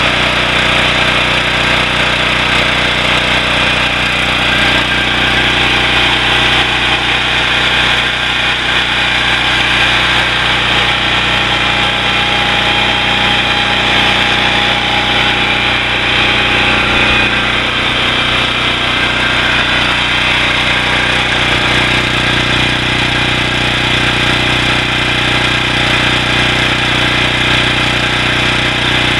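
The 9 HP Briggs & Stratton Vanguard OHV single-cylinder engine of a 5000-watt portable generator, running steadily at one constant speed shortly after a cold start.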